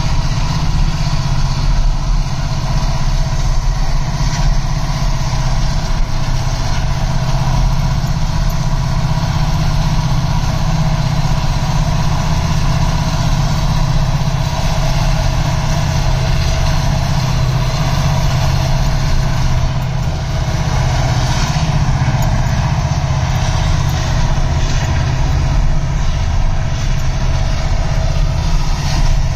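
Steady low rumble of a moving car, heard from inside its cabin: road and engine noise with a constant hum.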